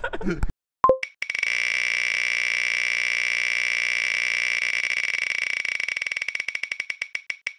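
Phone wheel-of-fortune app spinning: a short tone about a second in, then a fast run of electronic ticks that slowly spaces out toward the end as the virtual wheel coasts to a stop.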